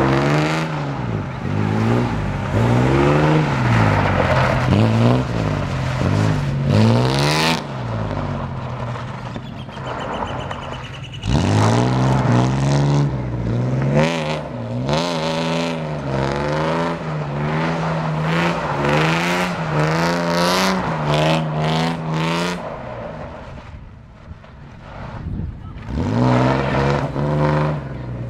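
A classic coupe's engine being revved hard and let off over and over as the car spins in tight circles on loose dirt, with its driven wheels spinning and scrabbling. The revs drop off for a few seconds twice, then come back sharply.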